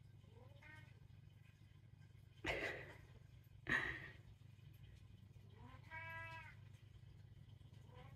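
An elderly domestic cat meowing and grumbling for attention, with a faint rising call near the start and a clearer, drawn-out meow about six seconds in. Two short, louder harsh sounds come about two and a half and nearly four seconds in, over a low steady hum.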